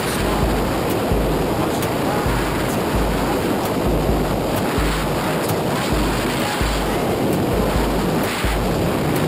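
Loud, steady rush of freefall wind buffeting a helmet camera's microphone.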